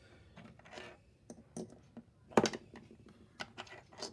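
Scattered light clicks and taps, a dozen or so at uneven spacing, the sharpest one about halfway through.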